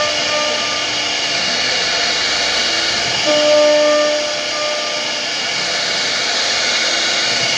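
CNC router spindle carving a wooden panel: a steady high-pitched hiss and whine, with a tone that swells briefly about three seconds in as the cutter bites.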